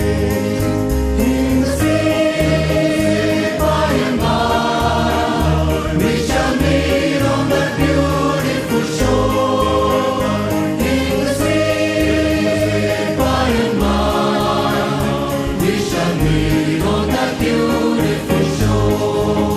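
A choir singing a hymn in sustained chords that change every second or two, over a steady low bass accompaniment.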